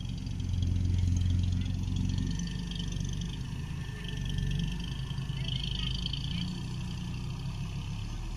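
Farm tractor's diesel engine running as it pushes and levels soil with its front blade. The engine is louder in the first two seconds, then settles lower.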